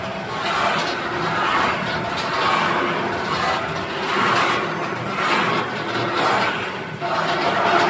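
Snack production line machinery running: a steady mechanical noise that swells and eases about once a second.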